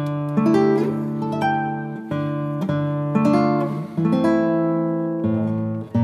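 Background music of a plucked acoustic guitar picking a melody over low bass notes, each note struck and then fading.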